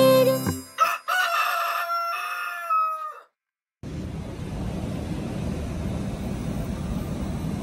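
The last note of a short jingle, then a rooster crowing sound effect for about two seconds, held and dropping away at the end. After a brief dead silence, steady street noise with traffic takes over.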